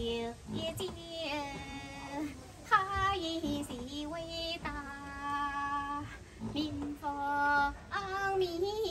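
A boatwoman singing unaccompanied in a high voice: a slow song of long held, slightly wavering notes in phrases of one to two seconds, with short breaks for breath between them.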